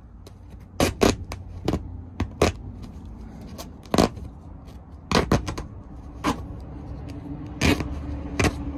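Folding knife blade punching and slitting through taut tent canvas stiffened with seam glue, giving a string of sharp, irregular snaps and pops, about a dozen in all, over a low steady rumble.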